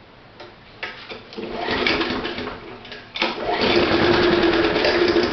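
Lawnmower engine being started: a few clicks, then a first attempt that runs briefly and dies away. About three seconds in it catches and runs steadily on heated, vaporized gasoline.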